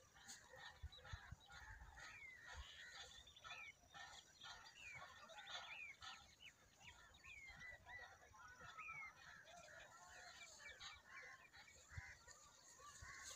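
Faint chorus of birds calling: many short chirps and quick falling whistles overlapping throughout.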